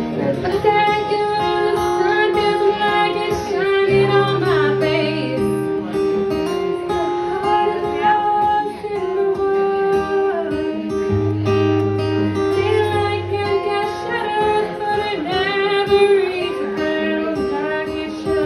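A woman singing with a strummed acoustic guitar accompaniment, performed live.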